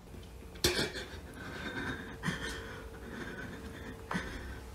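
Quiet breathing close to a phone's microphone in a dark room, with a sharp click a little over half a second in and a faint steady hum underneath.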